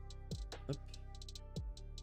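Background music with a beat: deep kick-drum thumps and sharp, ticking hi-hat strokes over sustained notes.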